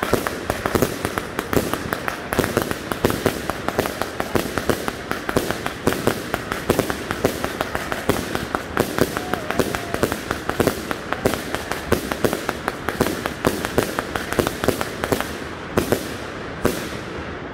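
Consumer firework cakes firing a rapid barrage, several overlapping launch thumps and bursts a second, thinning out near the end to a last few shots.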